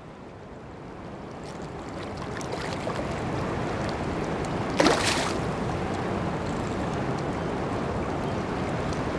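Steady rush of fast spillway tailwater, with one short splash about five seconds in as a hooked bigmouth buffalo thrashes at the surface.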